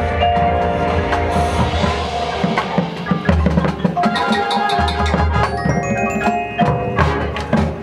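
High school marching band playing its field show music, heavy on percussion: drums and mallet percussion such as marimba and glockenspiel strike over held notes. A quick run of high bell-like notes comes about six seconds in.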